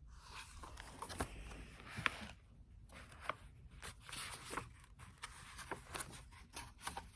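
Faint rustling of paper with scattered small clicks, as the pages of a picture book are handled and turned.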